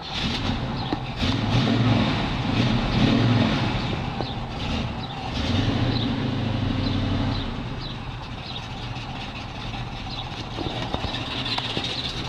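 A 1969 Camaro's V8 engine running just after start-up, revved up twice and then settling to idle. It has a little cam action: the uneven idle of a performance camshaft.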